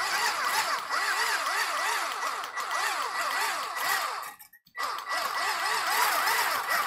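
Cordless stick blender with a whisk attachment running in a glass jug of liquid coffee and gelatin, whisking it to dissolve the gelatin. The motor whine cuts out briefly about two thirds of the way through, then starts again.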